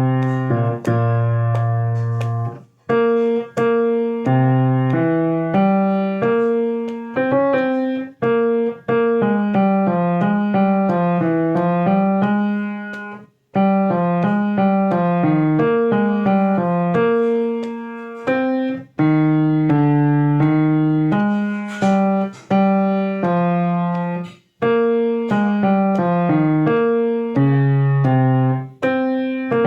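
Piano playing a song's vocal melody slowly, note by note, as a practice guide for a singer, in phrases with short breaks between them.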